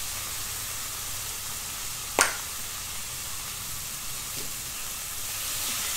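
Sambal belacan chili paste sizzling steadily in a hot pan. One sharp click about two seconds in as the cap of a plastic lemon-juice squeeze bottle is snapped open.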